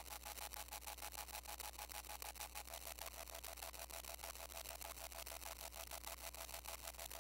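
Modular synthesizer putting out a rapid, even train of quiet clicks over a steady low hum.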